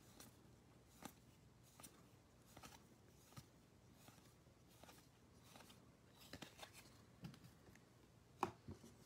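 Faint ticks of baseball trading cards being slid one by one off a stack in the hands, about one a second, with a slightly louder tap near the end.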